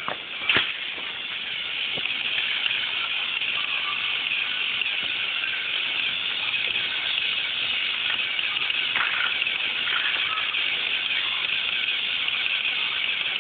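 Steady hiss, with a single sharp knock about half a second in.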